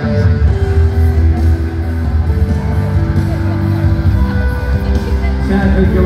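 Live rock band playing an instrumental passage, with guitar over bass and drums; the full band, bass and drums included, comes in at the start and plays on steadily.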